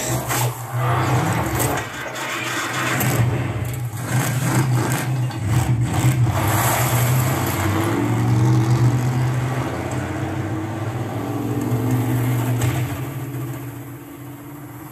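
Fifine Ampligame A22 2.1 speaker set (subwoofer and stereo satellites) playing a sound-effects demo track: a steady deep bass rumble under a wavering low tone and scattered sharp hits, fading out near the end.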